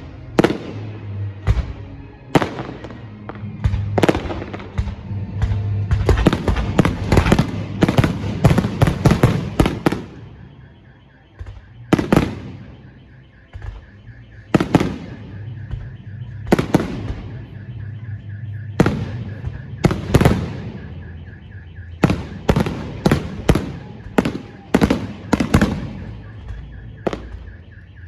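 Fireworks display: aerial shells bursting with sharp bangs that ring out after each one. A rapid run of bursts comes about six to ten seconds in, then single bangs every second or two.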